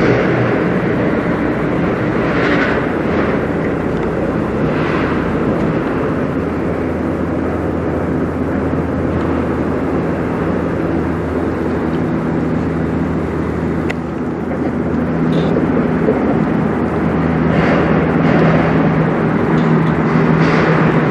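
Steady low drone of the lake freighter Algoma Strongfield's diesel engines as the ship passes close by, several hum tones held level, over a rushing hiss that swells a few times.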